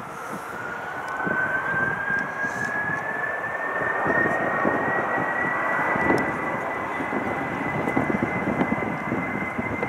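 Airbus A310 jet engines spooling up: a whine rises steadily in pitch over a rumble, then holds at a high pitch through the second half as the engine noise grows louder.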